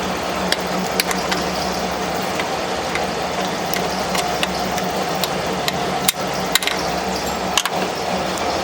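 Steady mechanical hum with scattered sharp metallic clicks and knocks.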